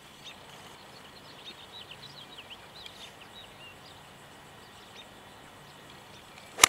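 Golf club striking a ball off the turf: one sharp crack near the end. Small birds chirp in short calls through the first half.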